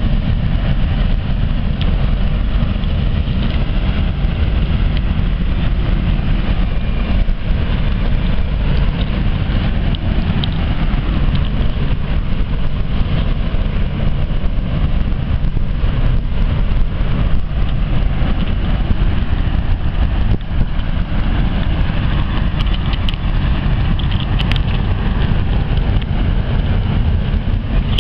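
A steady low engine rumble, unbroken throughout.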